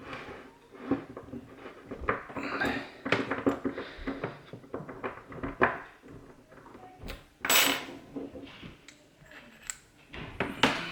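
Small metal clicks, clinks and knocks from a Kaba 6062 padlock being handled and taken apart, its cylinder coming out of the body, with a louder scrape of metal about two-thirds of the way through.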